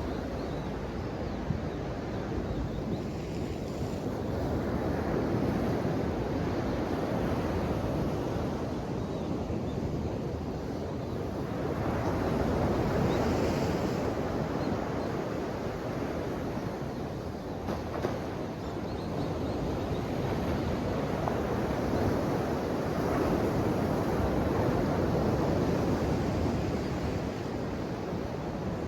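Ocean waves breaking and washing on the shore: a continuous rush of surf that swells and eases in long surges, roughly every eight to ten seconds.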